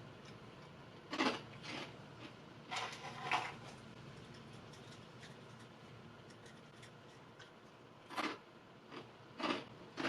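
Short crinkling rustles of a plastic snack wrapper being handled and opened, in two clusters of a few quick crackles each.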